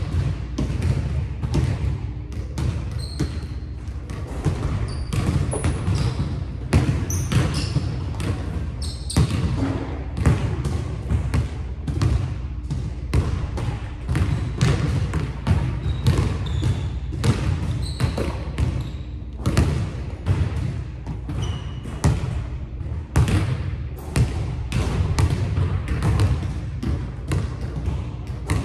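Basketball being dribbled on a hardwood gym floor, a steady run of bounces about two a second that echo through the large hall. Sneakers squeak briefly now and then.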